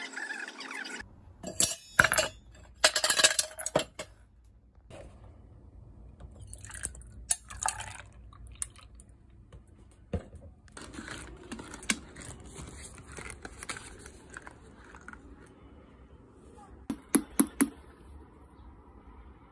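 Dishes, glassware and cutlery clinking and clattering as they are handled, in scattered knocks over a low steady hum. A quick run of clinks comes near the end.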